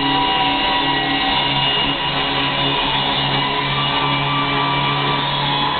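Music with guitar, playing steadily at an even level.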